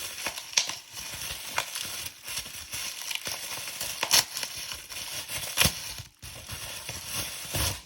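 Plastic packaging and slime containers being handled during an unboxing: continuous crinkling and crackling, with about five sharp clicks spread through it.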